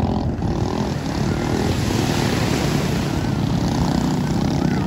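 Racing speedboat engines running together in a steady drone carried across the water.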